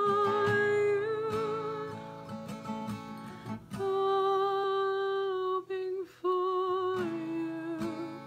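A woman singing long held notes with vibrato over her own strummed acoustic guitar.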